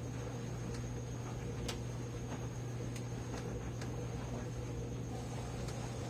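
Consul 13 kg top-load washing machine switched on and humming steadily with a low electrical hum and faint scattered ticks, just before water starts to fill the tub.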